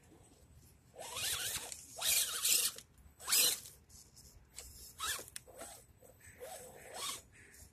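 Redcat Everest Gen7 Pro RC crawler's electric motor and geared drivetrain whirring in about six short throttle bursts as it climbs a steep dirt mound, the pitch rising and falling within each burst.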